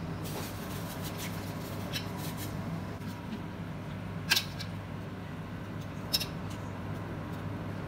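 A metal wire ladle clinks sharply against a stainless steel pot of boiling cabbage leaves, twice, about four and six seconds in, with lighter scraping clicks between, over a steady low hum.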